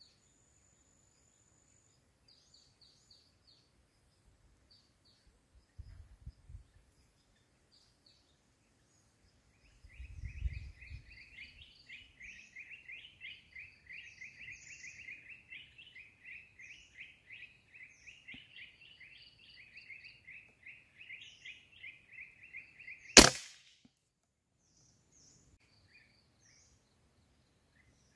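Small birds chirping in the trees, building from about ten seconds in into a fast, steady run of repeated chirps. Then a single sharp rifle shot, the loudest sound, and the chirping stops with it.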